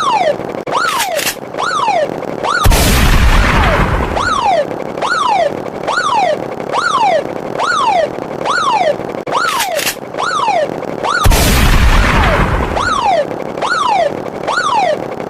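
Looping electronic sound effects: a whistle-like tone falling sharply in pitch repeats about once every 0.8 seconds. Two deep explosion-like booms, each lasting about two seconds, land near the start and past the middle, with quick clicks just before each.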